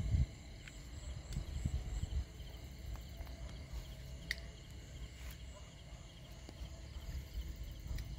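Night insects such as crickets chirping steadily at several high pitches, with low rumbling thuds from the phone being handled near the start and again about two seconds in.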